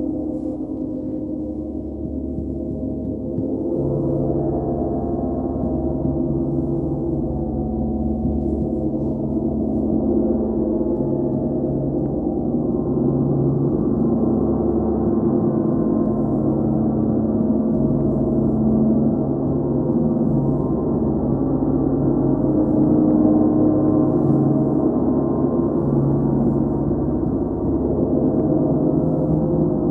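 Large hanging gongs played continuously with soft felt mallets, as in a gong bath: a dense wash of many overlapping low, sustained tones that swells a little a few seconds in and then holds steady.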